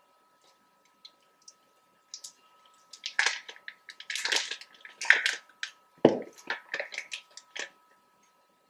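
Food-prep handling noises, a run of squishy, crackly sounds, with a thump about six seconds in.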